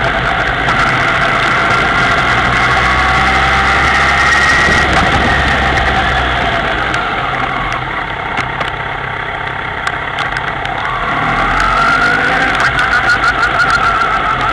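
Kawasaki ZX-10R's inline-four engine running as the bike is ridden, its note easing off and quieter past the middle, then rising again near the end as it accelerates.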